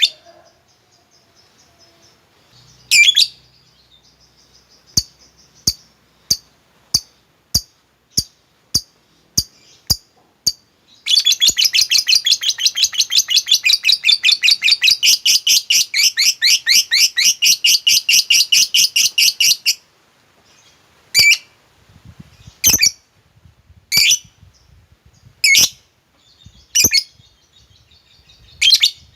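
Lovebird calling: a sharp chirp, then a run of short clicking ticks, then a long rapid chattering trill of about nine seconds, the 'ngekek' that keepers prize, followed by single loud chirps about every second and a half.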